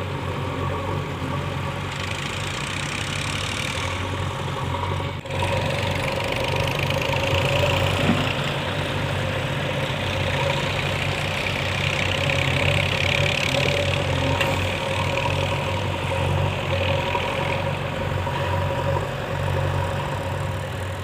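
Diesel engine of a JCB 3DX backhoe loader running steadily. There is a brief dropout about five seconds in, and after it the engine runs somewhat louder.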